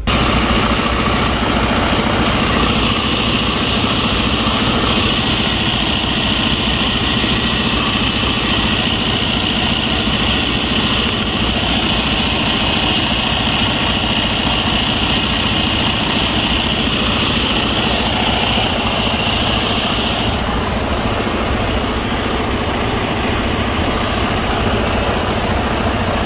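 Semi truck's diesel engine idling steadily during a soapy-water leak test of the cracked compressor-to-dryer air line. A higher hiss rides over the idle and stops suddenly about twenty seconds in.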